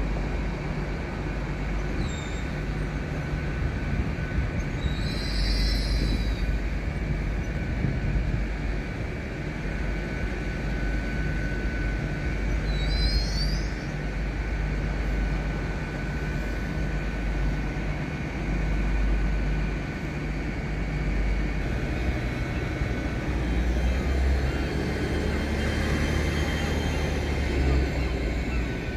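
LNER Class 800 Azuma bi-mode train running on its underfloor diesel engines: a steady low rumble, with two brief high squeals falling in pitch. A faint whine rises and falls near the end.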